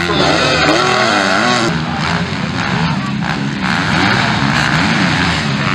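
Several motocross bike engines revving hard on track, their pitch swooping up and down as the riders open and close the throttle.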